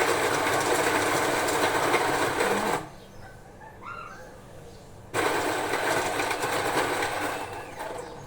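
Coffee machine running in two loud, steady bursts of whirring: the first cuts off about three seconds in, the second starts about five seconds in and fades away near the end.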